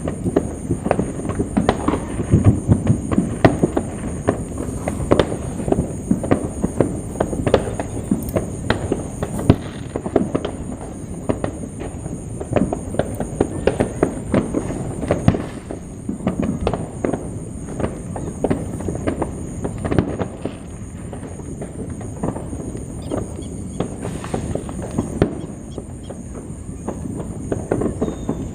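Fireworks going off in rapid, continuous succession: many overlapping bangs and crackles with no pause.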